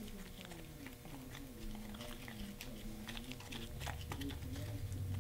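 Bondo body filler being stirred in a mixing bowl, its resin and hardener being worked to an even colour: quiet, irregular sticky scraping and small clicks. A low hum comes in a little before the end.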